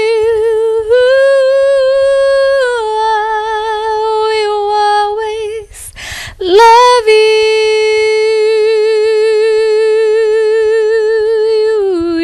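A woman singing a romantic love song unaccompanied, holding long notes with vibrato. Two phrases, with a short breath between them a little before halfway, and the long last note steps down in pitch near the end.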